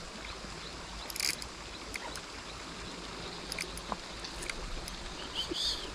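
River water running steadily, with a few short, faint crackling bursts over it.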